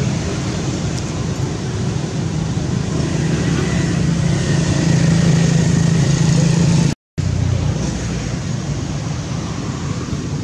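Steady rumble of nearby road traffic and motor engines, swelling for a few seconds before a brief dropout about seven seconds in.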